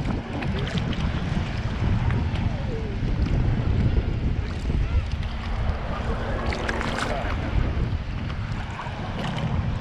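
Ocean surf sloshing and churning around someone wading in shallow salt water, with wind buffeting the microphone in a heavy low rumble.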